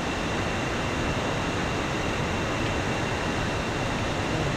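Bijagual Waterfall's steady rush of falling water, an even, unbroken noise.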